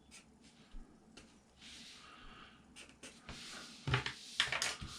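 Pen strokes scratching across paper, a few long hissing strokes with light clicks of the pen, and a couple of louder handling sounds near the end.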